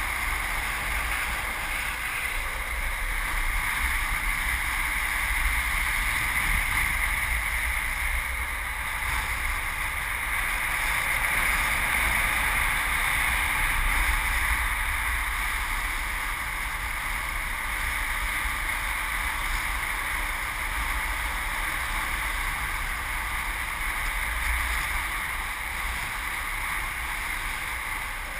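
Steady rush of wind on the microphone with longboard wheels rolling on asphalt, a downhill skateboard running at speed.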